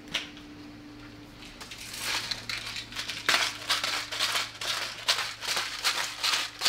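Hand salt grinder being twisted over a pan: a rapid, gritty run of crunching clicks as the salt crystals are cracked, starting about two seconds in and going on through the rest.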